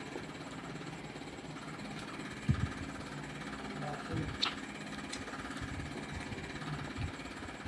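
Soft eating sounds of someone eating by hand, with a few short knocks, over a steady low mechanical buzz, most likely a motor.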